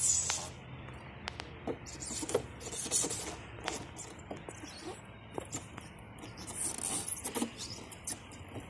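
A boy's clothes and shoes scraping and rubbing on a plastic playground slide as he slides down, with scattered clicks and hissy swishes.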